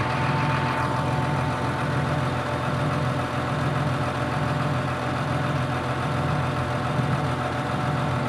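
Truck-mounted mobile crane's diesel engine idling steadily, with a thin whine that fades out about a second in.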